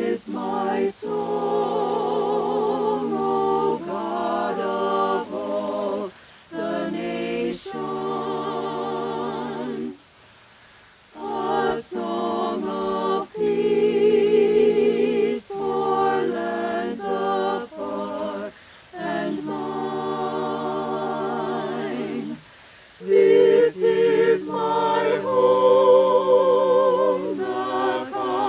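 A small mixed group of voices singing a cappella in harmony, in sustained phrases with short pauses for breath between them. The singing grows noticeably louder for the last few seconds.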